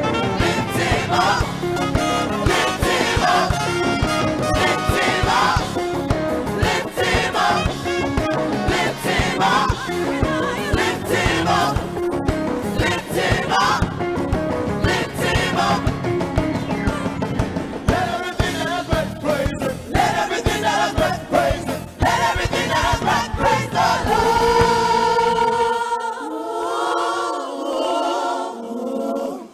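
Live gospel choir and lead singers singing an upbeat praise song over full instrumental backing. About 25 seconds in, the accompaniment drops out and the choir holds a sustained chord unaccompanied.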